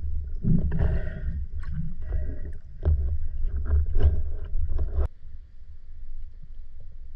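Muffled underwater noise through a diving camera: a heavy low rumble of water movement, broken by scattered knocks and clicks. About five seconds in it drops suddenly to a quieter, steadier low rumble.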